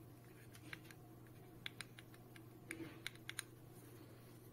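Handling noise from a LINGDU D500 dash cam's plastic body being turned over in the hands: a scatter of light clicks and taps, bunched between about one and a half and three and a half seconds in, over a faint low hum.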